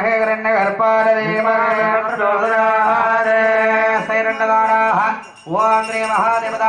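Sanskrit mantras chanted in long, held, melodic tones during a Hindu temple consecration rite, with a brief pause about five seconds in.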